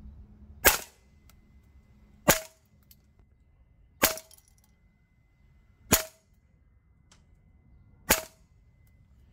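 Double Eagle Noveske N4 MWS gas blowback airsoft rifle firing five single shots, each a sharp report, spaced roughly two seconds apart.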